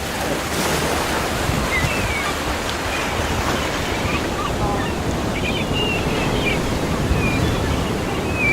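Ocean surf washing steadily onto a beach, with wind on the microphone and short, high chirping calls scattered over it.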